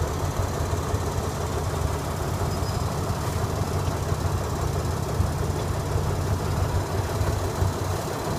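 Steady low rumble of a State Railway of Thailand diesel ordinary train running, heard from inside a passenger car: engine drone with wheel and carriage noise.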